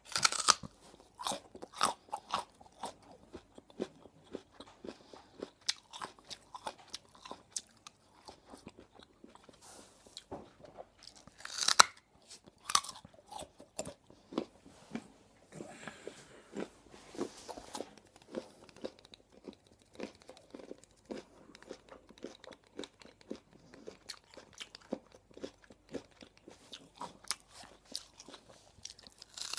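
Raw carrot being bitten and chewed close to the microphone: crisp snapping bites, the sharpest at the start and about twelve seconds in, between runs of quick wet crunching as it is chewed.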